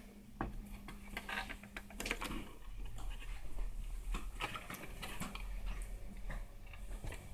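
A satellite receiver's circuit board being handled and lifted out of its sheet-metal case: irregular light clicks, taps and scrapes of the board and its cables against the metal, over a steady low hum.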